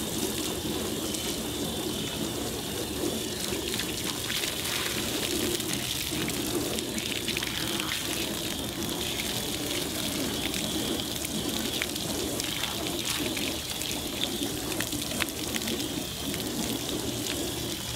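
Steady spray of water from a hose-fed dog washing wand hitting a cyanotype print inside a plastic bucket, rinsing out the leftover chemistry, with water spilling out of the bucket.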